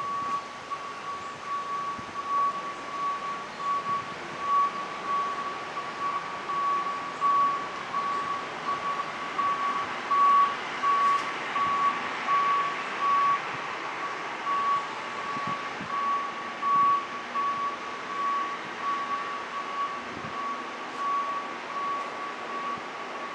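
An electronic beep at one steady high pitch pulsing on and off, roughly two or three times a second in uneven dashes, over a steady hiss, like a reversing alarm.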